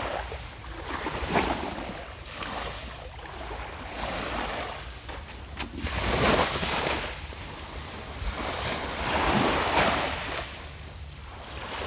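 Small waves washing up onto a sandy shingle beach, a rushing wash that swells and fades every two to three seconds, over a low rumble of wind on the microphone.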